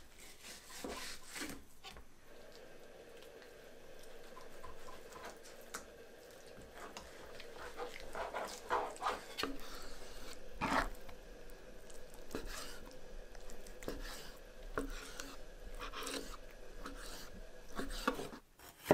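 Kitchen knife skinning sockeye salmon fillets and cutting the flesh into small chunks on a plastic cutting board: quiet, irregular slicing and scraping with a few sharper taps of the blade on the board.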